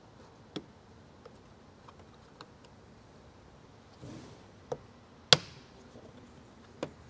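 Plastic clips of a Toyota Tundra's black triangular inner door mirror cover clicking and snapping as the cover is pried off by hand: a scattering of sharp clicks, the loudest a little past five seconds in, with a brief rustle of plastic just before it.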